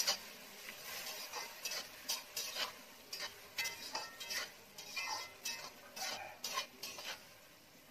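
A slotted metal spatula stirring and scraping wet mutton pieces around a metal kadai, in irregular strokes about one or two a second.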